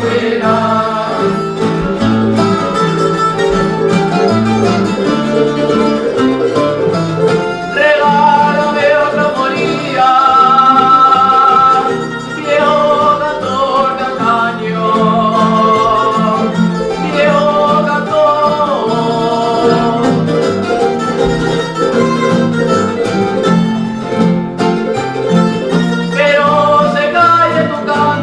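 Canarian folk ensemble playing a folía: a solo voice sings long, wavering notes over strummed and plucked guitars and timple.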